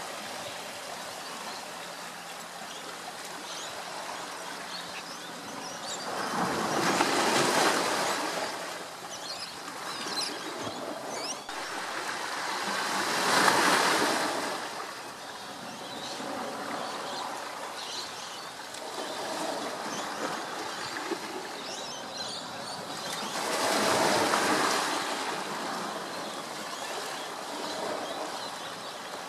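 Outdoor rushing noise that swells and fades three times, loudest about seven, thirteen and twenty-four seconds in.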